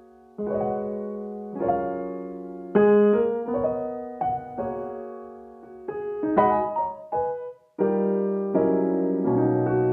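Background piano music: a slow melody of single notes and chords, each note struck and fading away.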